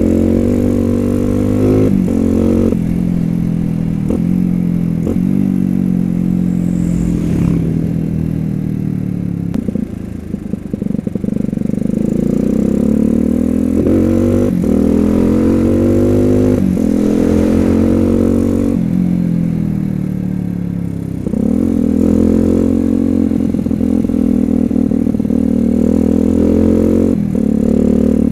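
The bored-up Suzuki Satria FU 150 single-cylinder four-stroke engine pulls hard through the gears. Its note rises in pitch on each pull and drops sharply at each gear change. About ten seconds in it backs off briefly and the note breaks up, then it pulls again.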